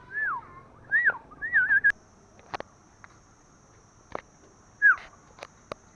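A series of clear whistled notes that swoop up and down in pitch, clustered in the first two seconds with one more short note near the end. Between them come a few sharp clicks, and from about two seconds in a faint, steady, high thin tone.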